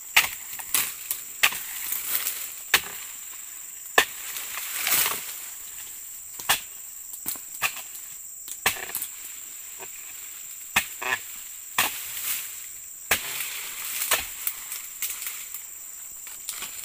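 Steel oil-palm chisel (dodos) on an ironwood handle chopping into the frond bases of an oil palm: a string of sharp chops at uneven intervals, with rustling as cut fronds are pulled away and fall.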